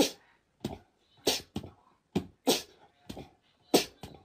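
Corgi giving a series of short, sharp huffs, about ten in quick irregular succession.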